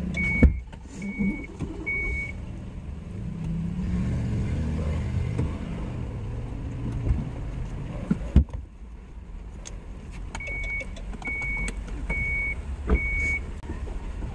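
A minivan's warning chime beeping four times at an even pace, about two beeps a second, then four more times near the end. Sharp thumps about half a second in and about eight seconds in, like a car door shutting; after the second the low outside rumble goes quieter.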